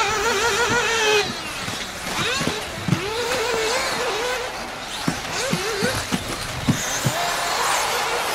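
Several electric RC off-road buggies racing, their motors whining up and down in pitch as the drivers accelerate and brake through the track's turns and jumps.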